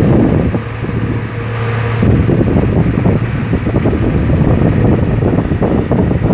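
Steady drone of offshore machinery, with wind buffeting the microphone. A low, even hum stands out for about a second and a half, starting about half a second in.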